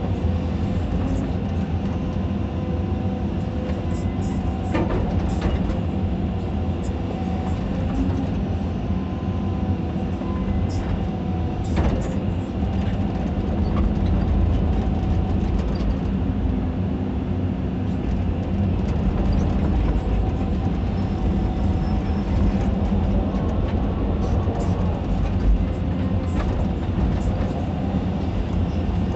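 Caterpillar 320D2 hydraulic excavator heard from inside its cab: the diesel engine running steadily under working load, with a couple of sharp knocks as the bucket works soil and stone.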